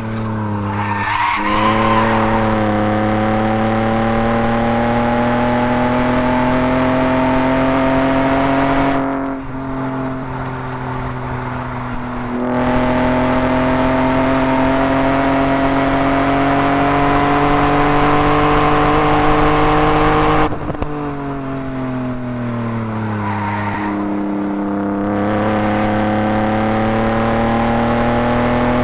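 BMW E36 328is's 2.8-litre straight-six under hard acceleration on track, revs climbing steadily in long pulls. About nine seconds in the engine briefly drops away. Just past twenty seconds the revs fall for a few seconds as the car slows, then it pulls again.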